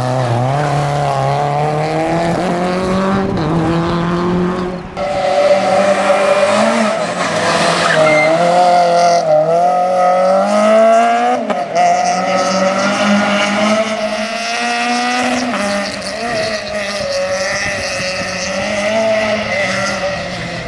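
Rally car engines revving hard through a tight tarmac corner, the pitch climbing and dropping with throttle and gear changes, with tyres squealing; several cars follow one another.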